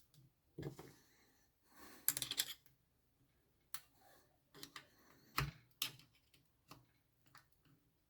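Scattered clicks, knocks and clinks of hand tools and metal engine parts being handled during a motorcycle engine rebuild, irregular, with a quick cluster about two seconds in and the loudest knock about halfway through.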